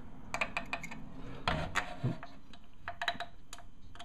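Irregular light clicks and taps of a circuit board and a new electrolytic capacitor being handled as the capacitor's leads are pushed into the board's holes.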